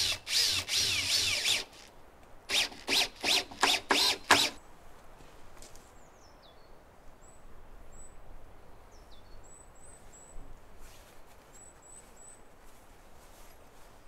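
Power drill working into wood, running in one long burst with a wavering whine, then five short bursts. Faint bird chirps follow.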